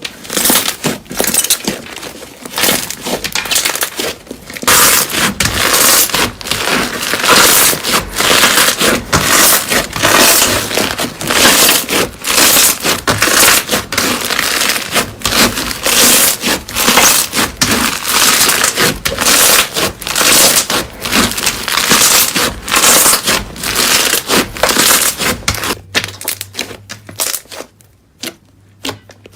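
Slime being squeezed and pressed by hand, giving a dense run of crackling, crunching pops that thins out and gets quieter near the end.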